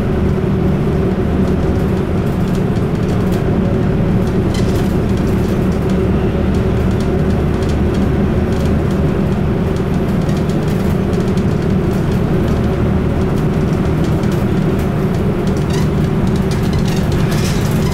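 Inside a moving bus: the engine drones steadily over road and tyre noise, with a few brief clicks and rattles from the cabin, most of them near the end.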